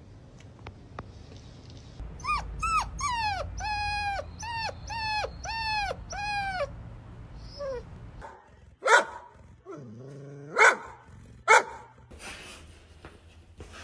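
A young puppy gives a run of about eight short whining cries, each dropping in pitch. A little later a golden retriever barks three times, sharp and loud.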